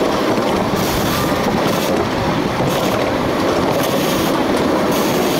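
Ride-on miniature railway train rolling along its narrow-gauge track: a steady rumble of wheels on rail with occasional light clicks.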